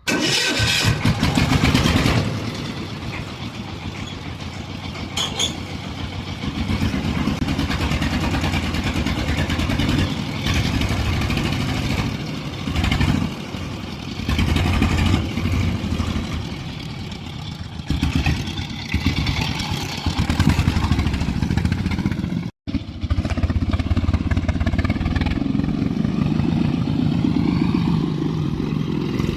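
Engine of a 20-year-old three-wheeled farm truck running loudly while it drives, rising and falling in speed, with a brief dropout about two-thirds through.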